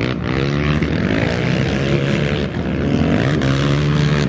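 Dirt bike engines running and revving, the pitch gliding up and down as the throttle is worked.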